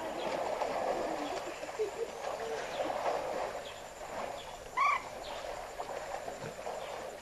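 Waterhole ambience of frogs calling steadily, with one short, clear bird call about five seconds in.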